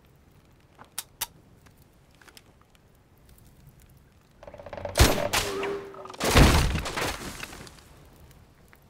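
Gunfire: two sharp shots about a second in, then about five seconds in a loud shot or blast followed by a louder crash that dies away over about two seconds.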